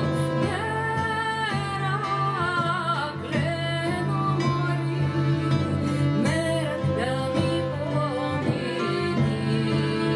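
Live band playing a Macedonian folk song: a woman sings the melody with two violins and a guitar accompanying, over a steady low sustained tone.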